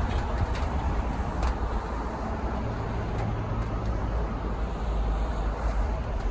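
Steady low rumble of a motor vehicle, with a brief low hum in the middle.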